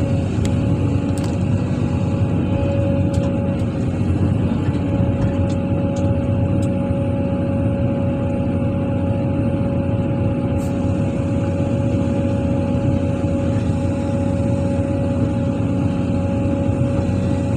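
Heavy diesel engine running steadily at a constant speed, with a steady whine held on one pitch above the rumble.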